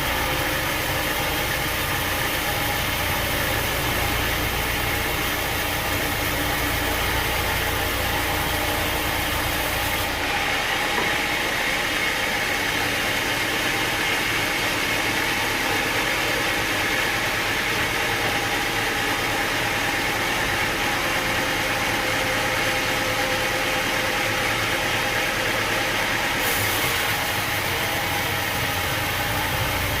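Sawmill machinery running with a steady engine-like hum. The deep rumble drops out about ten seconds in and comes back near the end.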